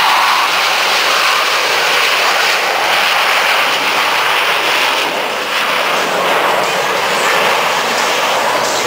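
Jet engine noise: a loud, steady rush that holds level without rising or falling.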